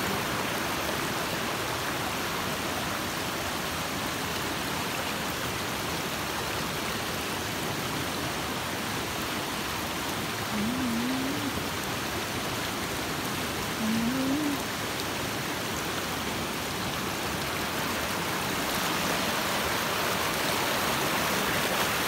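Mountain stream rushing over rocks and a small waterfall, a steady noise of running water that grows a little louder near the end. Twice a short, low rising sound cuts in briefly partway through.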